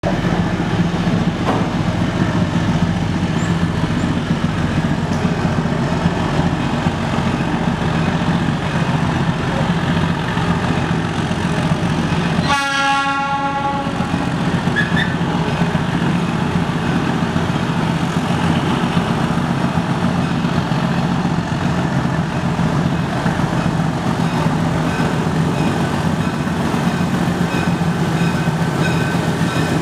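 Diesel locomotive approaching on street-level track, its engine giving a steady low drone, with one horn blast of about a second roughly twelve seconds in.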